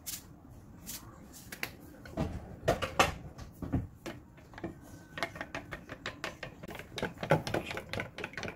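Wooden spoon beating eggs in a stainless steel mixing bowl, clicking and tapping against the metal sides in quick irregular strokes that come faster in the second half.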